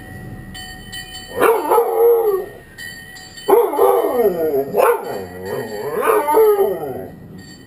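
Dalmatian howling: a short howl about a second and a half in, then a longer howl that wavers up and down in pitch and stops about a second before the end.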